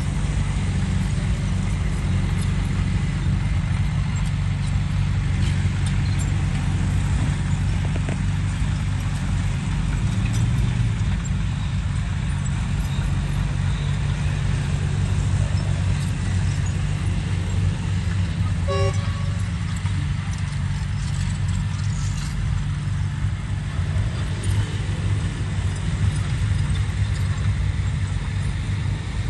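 Excavator's diesel engine running steadily at a constant pace, with a few scattered clicks and rattles.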